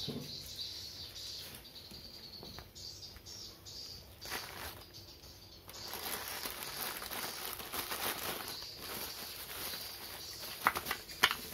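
Plastic bubble-wrap bag rustling and crinkling as it is picked up and handled, growing busy about halfway in, with a few sharp clicks near the end.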